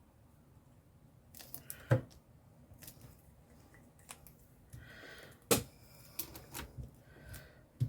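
Paper and card being handled on a craft table: soft rustling and scraping, broken by three sharp clicks or taps, the loudest about two seconds in and halfway through.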